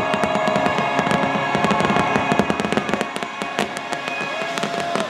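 Aerial fireworks shells bursting in a rapid finale barrage, with many sharp bangs and crackles in quick succession over the show's music.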